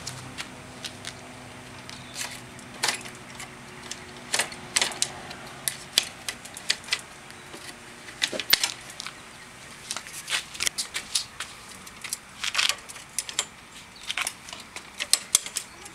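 Irregular sharp clicks and light rattles from hands handling equipment, over a faint steady hum.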